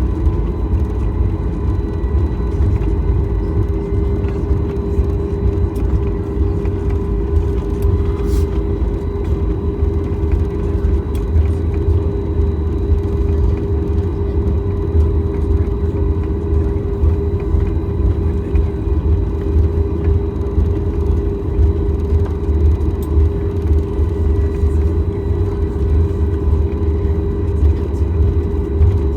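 Cabin noise of a Boeing 737 MAX 8 on the ground with its CFM LEAP-1B engines at idle: a steady low rumble with a steady hum running through it, holding one pitch throughout.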